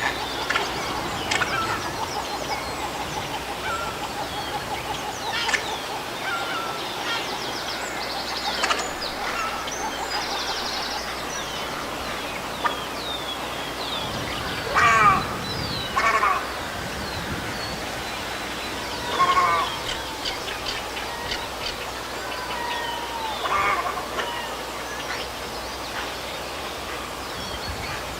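Heron calls: a few short, loud calls, the loudest clustered around the middle and one near the end, over a steady background of fainter calls from other birds.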